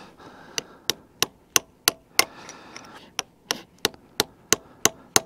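Hammer striking a chisel held against a seized snap ring on a Bobcat E50 excavator's hydraulic X-Change, in two runs of sharp taps about three a second, with a short break just past the middle. The ring is wedged tight in its groove because the threaded piston bushing has backed out against it.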